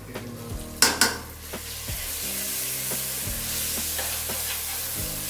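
Diced potatoes frying in oil in a stainless steel pot, stirred with a metal spoon: two sharp clanks of the spoon against the pot about a second in, then a steady sizzle.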